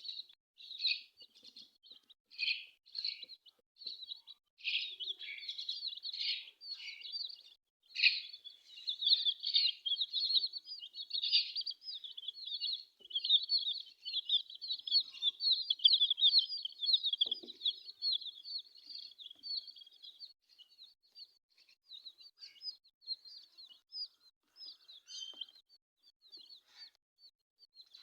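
Chicks peeping: many short, high-pitched cheeps overlapping, thickest in the middle and thinning out toward the end.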